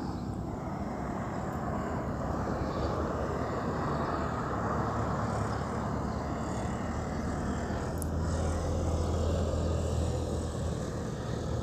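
Steady low rumble and hiss of outdoor background noise, with a low drone that grows louder in the second half.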